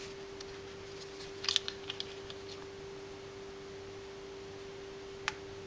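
Small hard clicks from handling the plastic and metal mounting clip at the rear of a Fizik saddle: a quick cluster of clicks about a second and a half in and one sharp click near the end, over a steady low hum.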